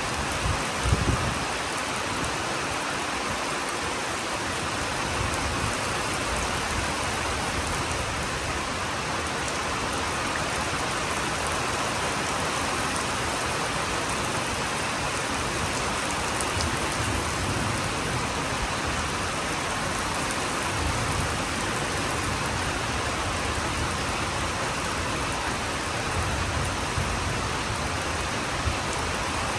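Steady rain falling, an even hiss of drops on the ground and leaves, with a short low thump about a second in.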